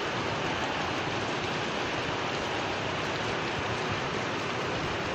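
Heavy rain falling, a dense steady hiss.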